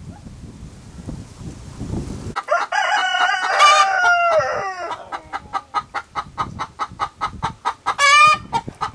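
Low rumbling noise, then suddenly chickens: a rooster crowing with a long call that falls in pitch, followed by a hen clucking in a rapid, even series of short clucks, the fussing cackle of a hen about to lay an egg. Another loud call breaks in near the end.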